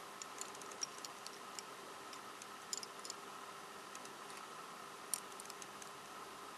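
Faint, light clicks of small plastic twisty-puzzle pieces being handled and tapped together, a few at a time at irregular intervals, over a steady faint hum.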